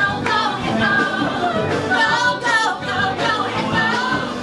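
A small group of male and female singers singing together in harmony in a live musical-theatre number.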